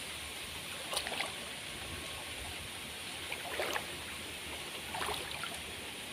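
Shallow stream water trickling steadily, with three brief small splashes about one, three and a half, and five seconds in.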